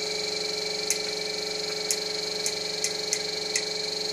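Homemade coil motor built on a computer fan, running with a steady high-pitched electrical whine and about half a dozen sharp, irregular clicks.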